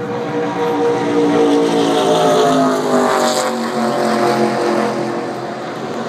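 V8 stock car engine running loud, swelling about one to three seconds in with its pitch falling as it passes, then easing off.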